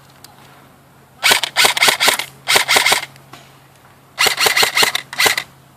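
Airsoft rifle firing three rapid bursts of full-auto shots, about ten a second, the first starting a little over a second in.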